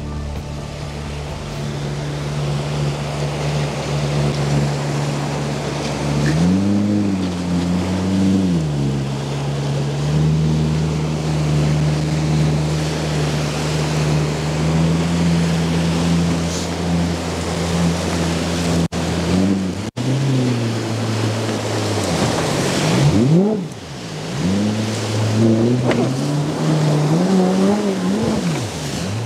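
Outboard jet-drive motor of a PVC jet boat running over the rush of river water. The engine revs up and back down once about six seconds in, then rises and falls several times in quick succession near the end as the throttle is worked.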